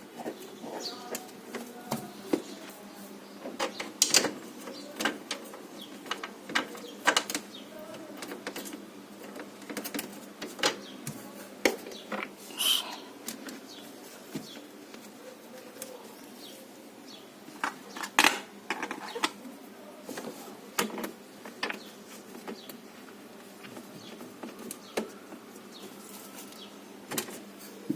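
Scattered, irregular clicks and light knocks, some sharp and loud, over a steady low background hum, with one brief chirp-like squeak about halfway through.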